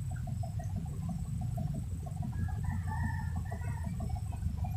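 A rooster crowing once, about two seconds in, lasting about a second and a half, over a steady low rumble and a fast, even pulsing hum.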